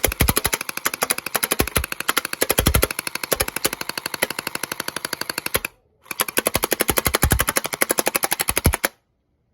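Orbeez gel-bead blaster firing full-auto: a rapid, even stream of sharp shots with a few heavier low thuds. The stream breaks off briefly about six seconds in, then fires a second burst that stops near the end. Crazy loud.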